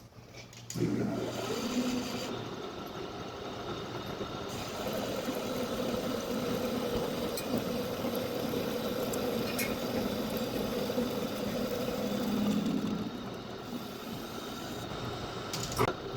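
Metal lathe running steadily, starting up about a second in, with a sharp click near the end.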